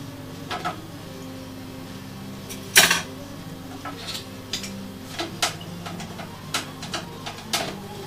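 Short wooden clicks and knocks as the parts of a handmade wooden music box are handled and fitted, irregular, with one loud knock about three seconds in.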